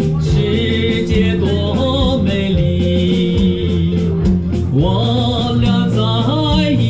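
Live band music: electric bass guitar and electronic keyboards playing a song under a wavering melody line with vibrato, steady and continuous.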